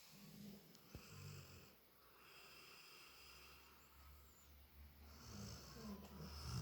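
Labrador retriever snoring softly in its sleep, with two rounds of snores: one near the start and one near the end.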